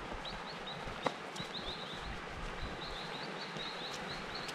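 Footsteps on a dirt forest trail, with a sharp click about a second in. A small bird chirps repeatedly in short high notes in the background.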